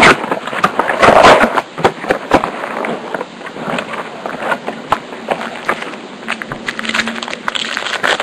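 Plastic wrapping crinkling and tearing as a box of trading card packs is unwrapped, with loud bursts of crackle at the start and about a second in, then quieter rustling and handling.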